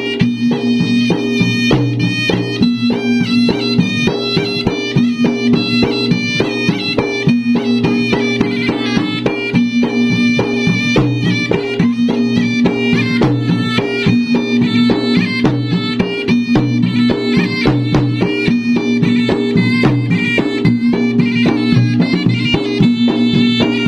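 Traditional Bugis-Makassar gendang drums played in fast, dense interlocking strokes, with a reedy wind instrument playing a wavering melody over a steady low tone.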